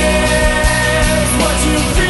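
Loud rock band recording with drums and sustained guitar lines.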